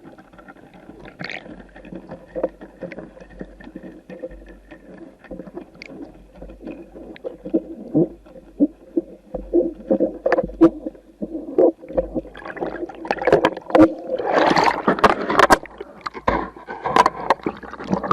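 Muffled water sloshing and gurgling around a submerged action-camera housing, with irregular knocks and splashing surges that grow louder past the middle as the surf moves the rig.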